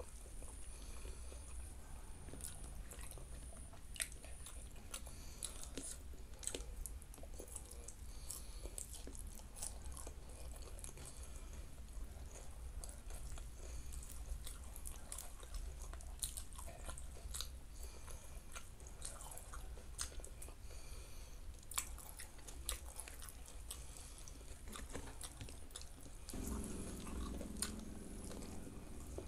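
Close-up chewing and mouth sounds of a person eating rice and side dishes by hand, with many short sharp clicks and smacks throughout.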